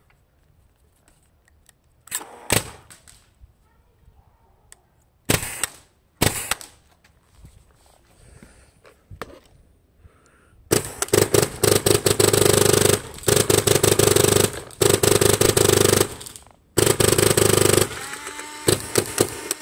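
AGD Automag (X-mag) paintball marker with a home-made electronic trigger board, fed by a Rotor loader through a Warp Feed. It fires a few single shots, then long strings of rapid fire. A steady motor whir follows near the end.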